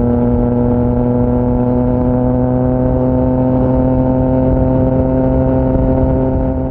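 Triumph Trident 660's inline three-cylinder engine breathing through a GPR Powercone Evo exhaust, running steadily under way with its pitch rising slowly as the bike gently gains speed. The sound begins to fade out right at the end.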